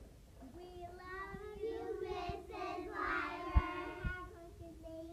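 A group of young girls singing a slow tune together in unison, the notes long and held, beginning about half a second in. A couple of sharp knocks sound over the singing, the loudest about three and a half seconds in.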